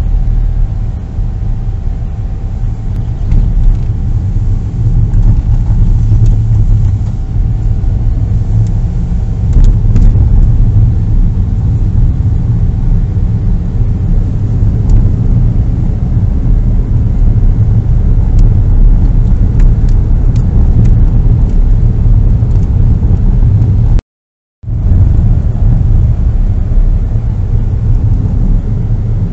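Steady low drone of a 2015 Subaru Stella kei car driving at low speed, heard from inside the cabin: its small three-cylinder engine and the tyre noise blended together. The sound cuts out completely for about half a second near the end.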